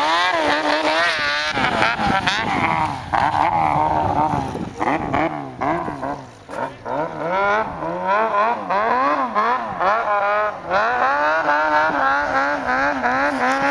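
Snowmobile engine revving up and down over and over, its pitch rising and falling every second or so, with a short lull about six seconds in.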